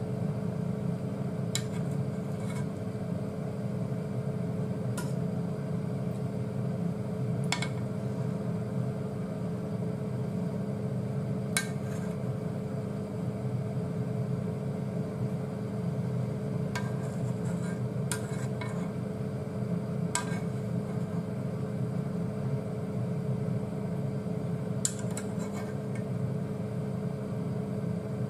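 Steady electrical hum of an induction hob heating a pot of soup, with about eight light clinks of a metal ladle or spoon tapping a stainless steel bowl as skimmed scum is knocked off it.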